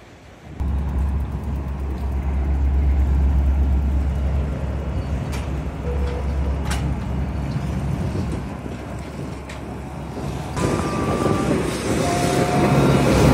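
Small harbour ferry's diesel engine running at the landing, a steady low rumble mixed with wind, with a few clicks in the middle. It grows louder and fuller near the end, right beside the boat.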